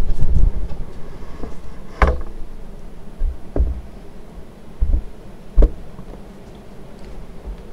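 Commander Angel ceiling fan running with an uneven low rumble, broken by three sharp knocks about two, three and a half and five and a half seconds in.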